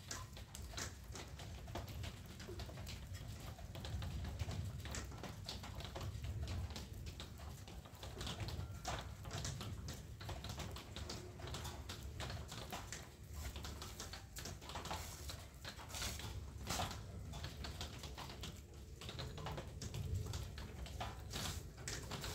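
Scattered light clicks and knocks of cucumbers being picked up and gathered by hand, over a low steady rumble.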